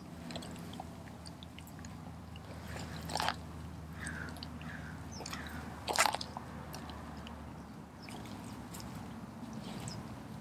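Doberman chewing and crunching on a whole raw, feathered chicken, with scattered wet chewing clicks and two loud crunches, about three and six seconds in.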